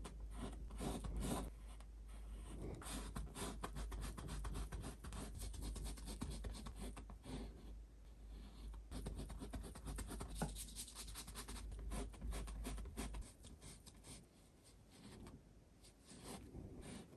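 Paintbrush strokes on canvas: quick runs of short scratchy rubbing strokes with brief pauses. A steady low hum sits underneath and stops about three-quarters of the way through.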